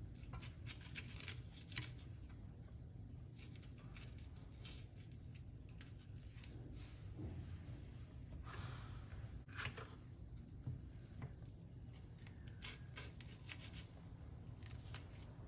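Knife cutting through green and red peppers on a chopping board: faint, scattered crisp crunches and taps.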